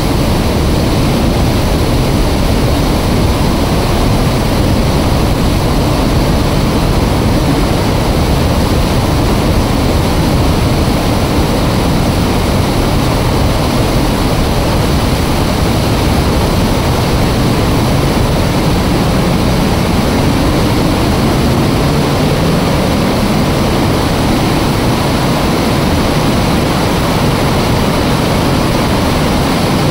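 Water rushing through an open dam spillway: a loud, steady rush with a heavy low rumble.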